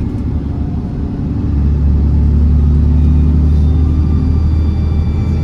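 Diesel engine of an Alexander Dennis Trident double-decker bus pulling under load, heard from on board. The low drone grows louder about a second and a half in and holds steady, and a faint high turbo whistle comes in partway through.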